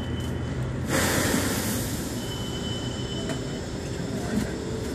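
City street traffic rumbling steadily, with a short burst of hiss about a second in and a faint high squeal a little after. A few faint knocks sound near the end.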